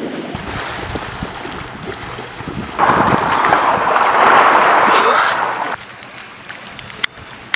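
Rushing, splashing seawater as swimmers in rubber rings thrash about in the shallows, loudest for about three seconds in the middle, with wind buffeting the microphone.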